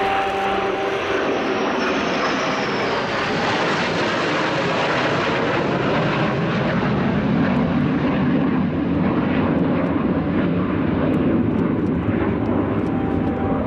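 Jet noise from a formation of F-15E Strike Eagle fighters flying past, a loud, steady roar. A high whine falls in pitch in the first few seconds, then the sound turns into a deeper rumble as the jets move away.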